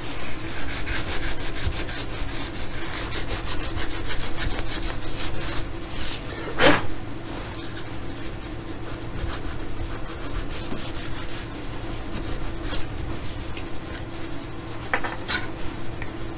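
Sandpaper rubbed by hand over a turned wooden piece in short back-and-forth strokes, sanding a wooden cat's ear to shape. A single sharp knock about seven seconds in is the loudest sound.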